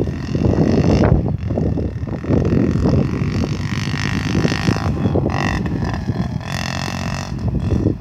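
Wind buffeting the microphone, with a small motorbike's engine whining in the distance from about two seconds in, its pitch rising and falling as the rider works the throttle.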